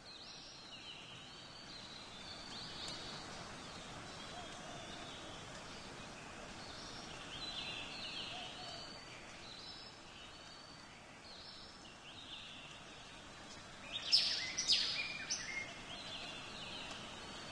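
Birds chirping over a steady background hiss, with a louder flurry of chirps about fourteen seconds in.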